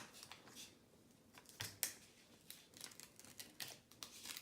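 PLA plastic from a 3D pen being peeled off paper: faint, irregular crackles and paper rustles.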